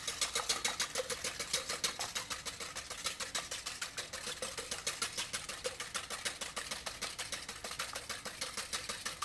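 Wire whisk beating two raw eggs in a mixing bowl, its wires clicking against the bowl in a rapid, even rhythm.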